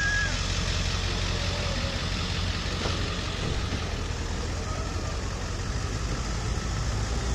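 Steady low rumble of a motor vehicle's engine running at idle, with street noise.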